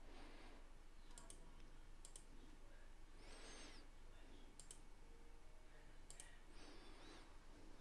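Faint computer mouse clicks, about four of them spread over several seconds, over a low background hiss.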